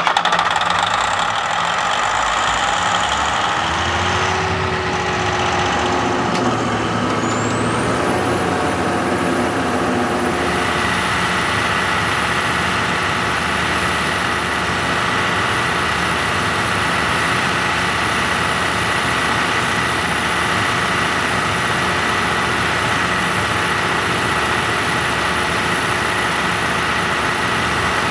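Kohler 1500 kW diesel generator engine running just after its auto start. It settles over the first ten seconds or so, with a high whine rising about seven seconds in and then holding, and after that runs steadily.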